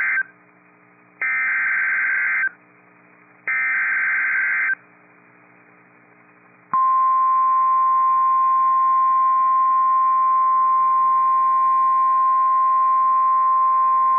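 NOAA Weather Radio Emergency Alert System signal. The end of one SAME digital header burst is followed by two more buzzy data bursts, each about a second long and about a second apart. About halfway through, the steady 1050 Hz warning alert tone starts and holds, announcing that a new warning is about to be read.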